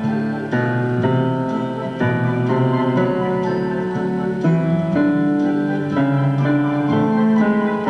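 Instrumental background music led by piano, with held notes changing about every half second.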